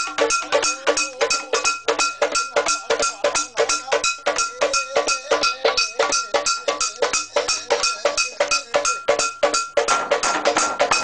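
Fast, even ceremonial percussion accompanying Mentawai shamans' dance: sharp ringing strikes, about six a second, with a bright bell-like tone in each. The beat thickens about ten seconds in.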